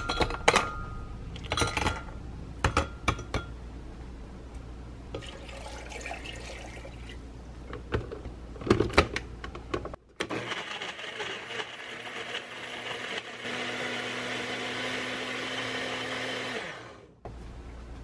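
Chunks of beet and fruit knocking against the glass jar of a Kenwood blender as they are dropped in. About ten seconds in, the blender motor runs steadily for around six seconds, pureeing them into beet juice, and then winds down.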